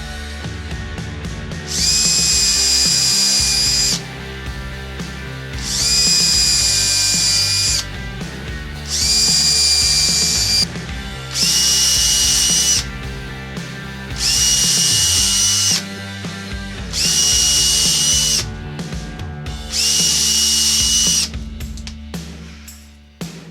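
A small electric power tool's motor whining in seven short runs of one to two seconds each, about every three seconds, its pitch rising as it spins up each time. Background music plays underneath.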